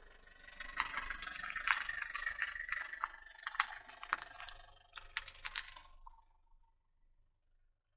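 Car tyre rolling over a row of small plastic tubs of soft coloured filling, crushing them in a dense run of sharp cracks, snaps and crackles that starts about a second in and dies away about six seconds in.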